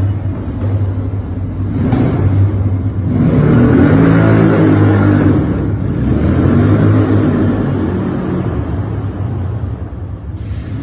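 A vehicle driving past with a low rumble that swells to its loudest about four to five seconds in and then slowly fades.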